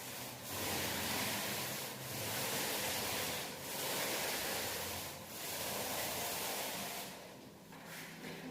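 Paint roller loaded with wet paint rolling over a wall in repeated back-and-forth strokes, a sticky hiss that swells and eases about once every second and a half.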